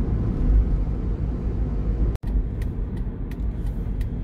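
Steady low rumble of a car driving on a wet road, heard from inside the cabin. There is a sudden break about two seconds in, then faint light clicks over the same rumble.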